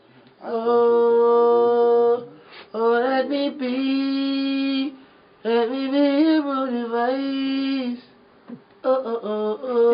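A singer's voice, unaccompanied, holding long wordless notes in four phrases with short gaps between them; the middle two phrases bend up and down in little runs. A vocal take or warm-up during a studio recording session.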